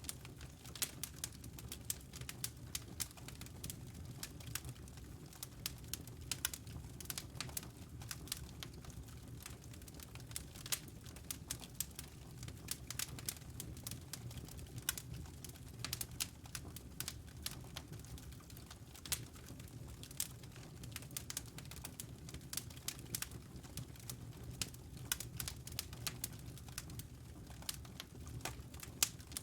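Wood fire crackling in a stone fireplace: irregular sharp pops and snaps, several a second, over a steady low rumble of the burning logs.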